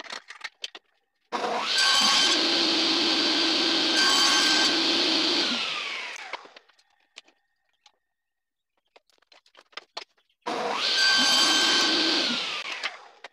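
Table saw switched on and running for a cut, then switched off and spinning down with a falling whine, twice. Light clicks and knocks of wood pieces being handled fill the gap between the two runs.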